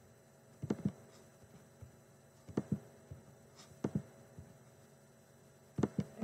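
Computer mouse clicking: four pairs of short, sharp clicks spread through a few seconds of quiet room noise.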